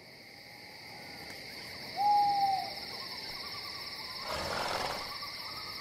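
Night-time sound effects: a steady chorus of chirping crickets, with a single long owl hoot about two seconds in, the loudest sound, and a brief whoosh of noise about four and a half seconds in.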